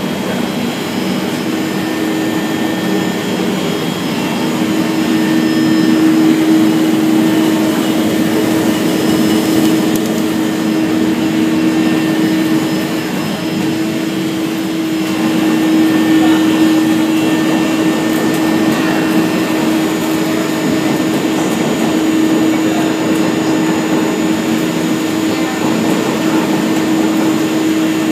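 Polyester fibre opening and pillow-filling machine running: a steady, loud, blower-like hum with one strong low tone, swelling and easing slightly every several seconds.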